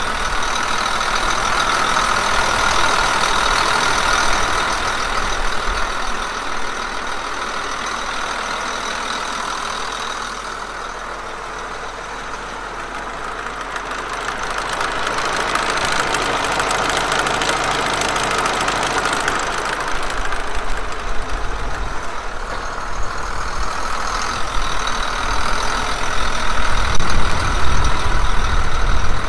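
John Deere 8760 tractor's 10.1 L six-cylinder turbocharged diesel engine idling steadily, close up, with a steady high whine over the engine sound. It grows quieter in the middle and louder again near the end.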